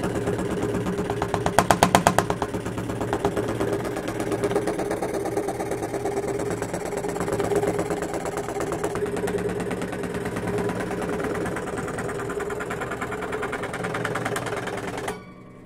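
Craftsman scroll saw running at medium speed, its blade stroking rapidly up and down as it cuts a curve through thin plywood, with a steady motor hum under the fast stroke rhythm. A louder rattling stretch about two seconds in; the sound cuts off abruptly near the end.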